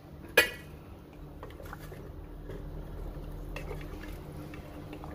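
A single sharp clank of kitchenware about half a second in, then a pot of chicken tinola broth, with water just added, heating on the stove with faint crackles and small ticks.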